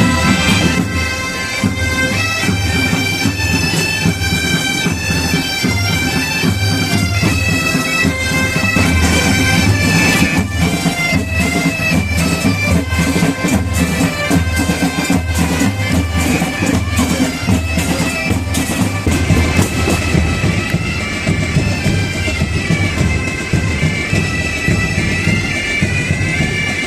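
Massed bagpipes playing a tune together over their steady drones. The melody shifts constantly above a held drone note, with some sharp strikes mixed in between about ten and twenty seconds in.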